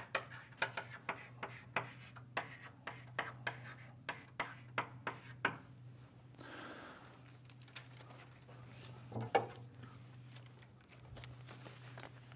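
Writing: a quick, irregular run of short scratching strokes for about five seconds, then quieter with a single tap a few seconds later. A low steady hum lies under it.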